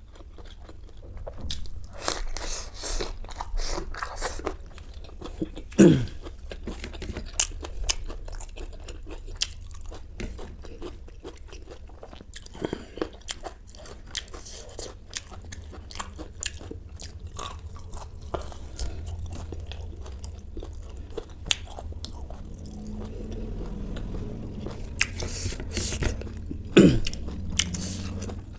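Close-miked chewing and crunching of food by a mukbang eater, a steady run of wet clicks and crunches. Twice, a short sound slides down in pitch and stands out as the loudest moment.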